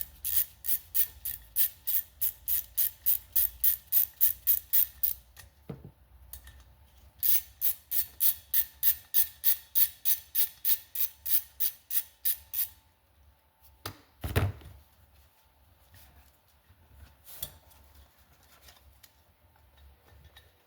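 Socket ratchet clicking rapidly as the two 10 mm bolts of the engine's tensioner are backed out. There are two runs of about five seconds each, at some four to five clicks a second, followed by a couple of knocks.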